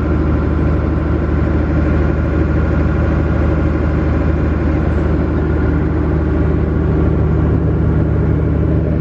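Small passenger ferry's engine running steadily under way, a deep, even engine drone with no change in pitch or level.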